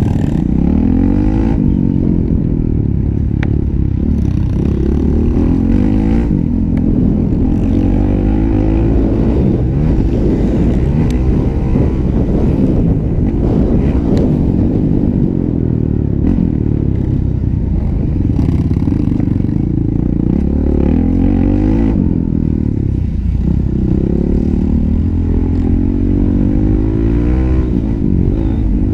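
Honda 450 motocross bike's single-cylinder four-stroke engine under hard racing use, the revs climbing and dropping over and over every second or two through corners and straights.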